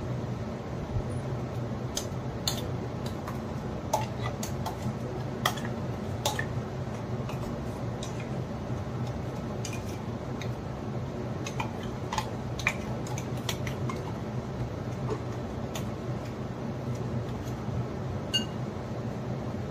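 Metal kitchen utensils clinking and scraping: about a dozen scattered sharp clicks of a spoon against steel vessels, over a steady low hum.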